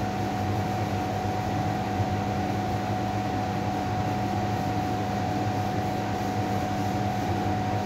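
Steady hiss with a constant low hum and a held mid-pitched tone, unchanging in level.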